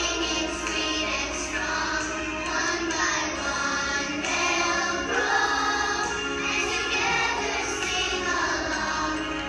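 A group of young children singing a song together with musical accompaniment.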